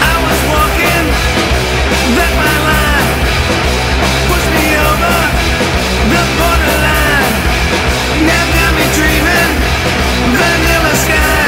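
Live rock band playing loud, distorted electric guitars over bass and a steady driving beat, with bending lead-guitar or vocal lines every few seconds.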